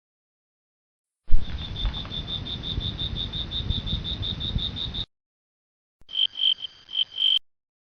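Cricket chirping in a quick, even pulse of about six chirps a second over a low rumble for nearly four seconds. After a short gap, a second clip of a few slower, slightly lower chirps.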